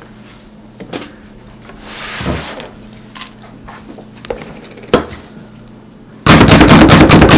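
A few light handling clicks and knocks, then near the end a plunger-style food chopper is slapped down rapidly again and again, loud fast clacking at several strokes a second.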